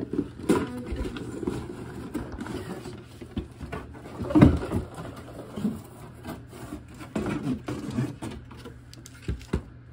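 Rustling and clacking of a toy box and its packaging being handled as parts are taken out, with a louder knock about four and a half seconds in.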